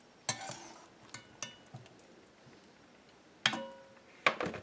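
A long metal spoon clinking against the rim and side of a metal pot while scooping steamed mango pieces out of the water. A few light taps come first, then louder ringing strikes about three and a half seconds in and near the end.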